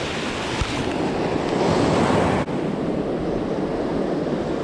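Ocean surf washing up the sand, with wind buffeting the microphone; the wash swells to a peak about two seconds in.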